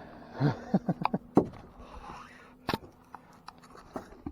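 Scattered handling noises: a series of sharp clicks and knocks with some faint scraping in between.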